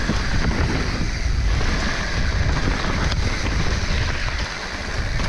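Wind buffeting the camera microphone, with low rumble from a mountain bike riding down a dirt trail. It eases slightly about four and a half seconds in.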